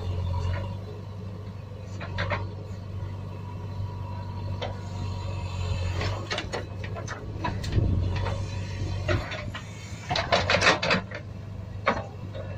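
Plastic toy loader bucket scraping and scooping through sand, with scattered small plastic clicks and knocks over a steady low hum, and a quick rattle of clicks about ten seconds in as the loaded bucket reaches the toy dump truck's plastic bed.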